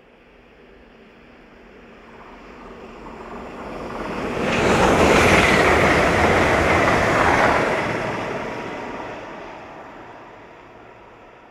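Lumo Class 803 electric high-speed train passing at speed. Its wheel-and-air rush builds steadily, peaks loud as the carriages go by, then fades away, with a high tone near the peak that drops slightly in pitch.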